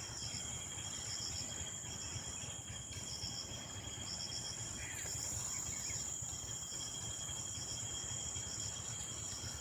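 Insects calling: a steady high-pitched trill with short groups of rapid chirps recurring every second or so, over a low rumbling background noise.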